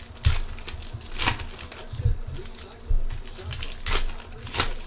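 Foil wrapper of a 2014 Topps Chrome Mini trading card pack crinkling as it is pulled open by hand, with sharper crackles about a second in and near the end. Short low thuds from handling are heard now and then.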